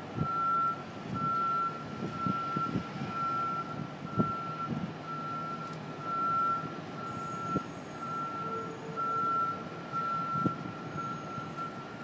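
Distant construction-equipment warning beeper sounding a single-pitched beep about once a second, over and over. Scattered dull knocks from the site come in between.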